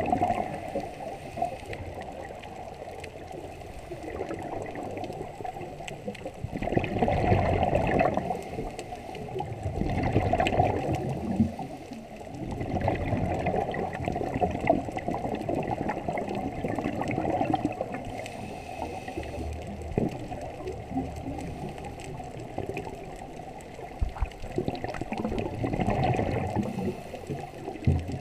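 Underwater gurgling of a scuba diver's exhaled air bubbling out of the regulator exhaust. It swells and fades every few seconds with each breath.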